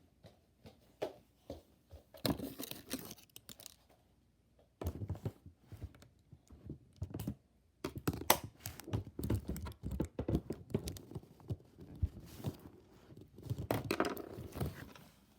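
Toy packaging being handled and pulled apart: tearing, crinkling and rustling with scattered small knocks, coming in stops and starts.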